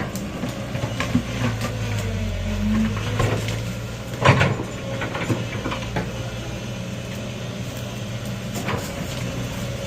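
Excavator's diesel engine running steadily, with several sharp metallic knocks; the loudest comes a little over four seconds in.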